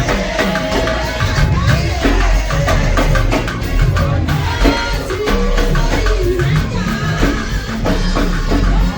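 Upbeat music with a drum kit and percussion keeping a steady beat over a moving bass line.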